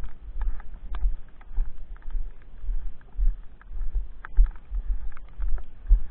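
Footsteps crunching through snow at walking pace, about two steps a second, each with a low thud.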